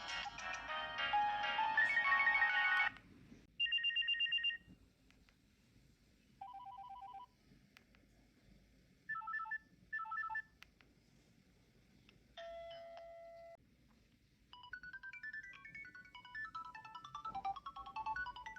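Nokia 7610 mobile phone playing its ringtones and alert tones one after another. A polyphonic melody cuts off about three seconds in, then several short beeping tones follow with pauses between them, and another quick melody starts a few seconds before the end.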